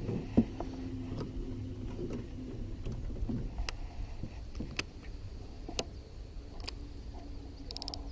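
Baitcasting reel handled during a topwater lure retrieve: a sharp knock at the start and another half a second in, light ticks about once a second, and a short run of reel clicks near the end as the handle is cranked. Under it runs a steady low motor hum.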